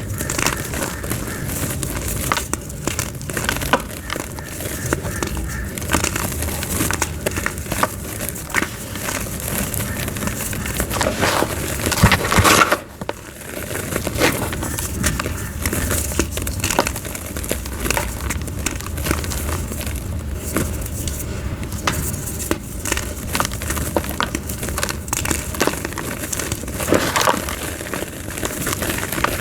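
Soft white gym chalk being crushed and crumbled into powder: a dense, continuous run of soft crackles and crunches, with a louder crush about twelve seconds in and a short pause just after it.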